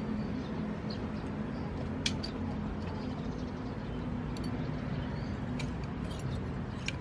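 Outdoor town background: a steady low hum with a few short, sharp clicks scattered through.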